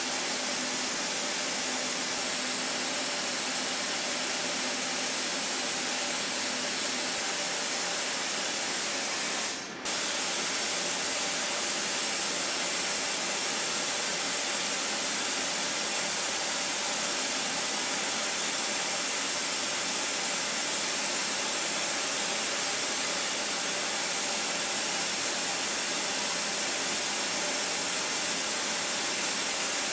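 CNC machining centre milling tough-pitch copper with carbide end mills: a steady, even hiss, with a faint hum in the first several seconds. The sound briefly drops out about ten seconds in.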